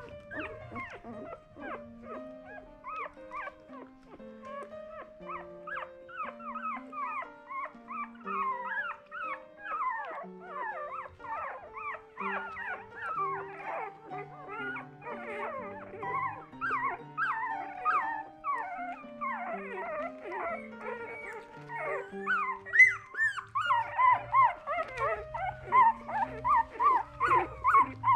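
Eleven-day-old Miniature Australian Cattle Dog puppies squeaking and whimpering as they nurse, many short rising and falling squeaks, growing busier and louder in the last few seconds. A slow background melody plays underneath.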